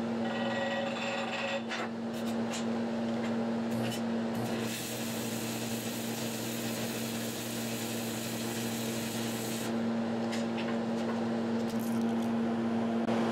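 Stick-welding arc crackling and hissing as a 1/8-inch 7018 electrode runs an outside corner weld on quarter-inch steel plate at about 105 to 108 amps. The arc stops about ten seconds in. A steady hum runs underneath throughout.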